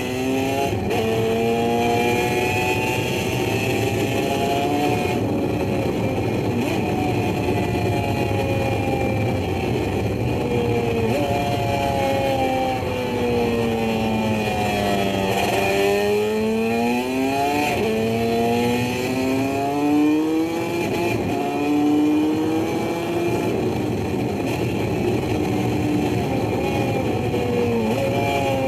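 Two-stroke motorcycle engine pulling hard and revving through the gears: the pitch climbs and then drops at each shift. About midway the engine winds down steadily before accelerating again.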